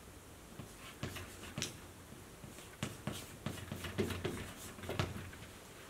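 Chalk on a blackboard as words are written: a string of short, irregular taps and scratches.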